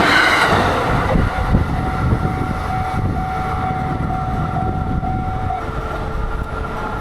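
A passing train's noise dies away over the first second, leaving a low rumble of the receding train. A Japanese level crossing's electronic warning bell rings in an even, quick rhythm of about two strokes a second, then stops about five and a half seconds in.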